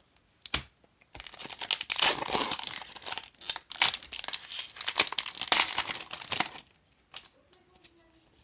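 Foil wrapper of a Magic: The Gathering booster pack being torn open and crinkled: a dense rustling crackle lasting about five and a half seconds, followed by a few light clicks.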